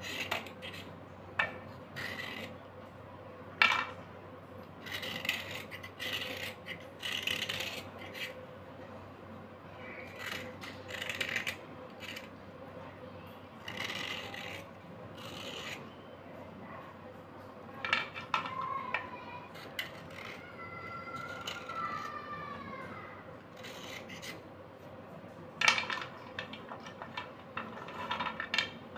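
Slate pencils scraped with a thin metal blade: irregular short rasping strokes, with a few sharp clicks, about 4 seconds in and again near the end.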